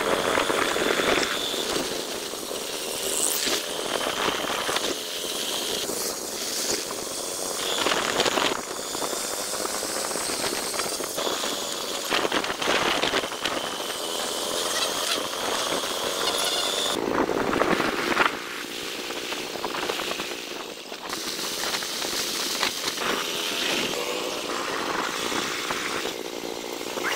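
Honda motorcycle running at road speed while being ridden, its engine hum under a steady rush of air and road noise. The sound changes abruptly a few times.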